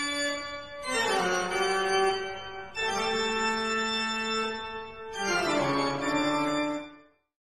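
Organ music: a few long held chords, each changing to the next every two seconds or so, fading out near the end.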